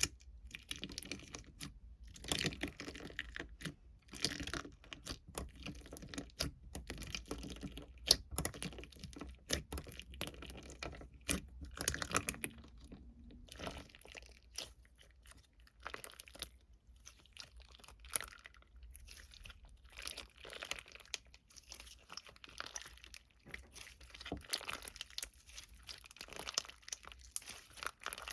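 Irregular clicks, crinkling and tearing sounds of small objects being handled, with no regular rhythm.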